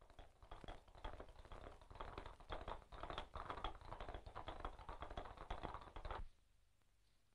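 Hoofbeats of several horses galloping on stony ground, a dense, irregular clatter that cuts off abruptly about six seconds in.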